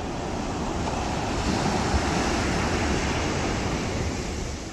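Surf breaking on a sandy beach: a wash of wave noise that swells about a second in, peaks, then eases off.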